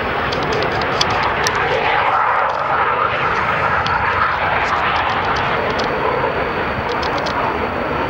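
Loud, steady jet engine noise from a Panavia Tornado's two RB199 turbofans as the jet lands and rolls along the runway.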